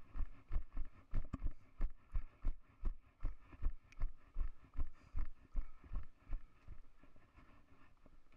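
Footsteps on a rocky, gravelly path, brisk dull thumps about three a second, with camera jostling; they fade out about two seconds before the end.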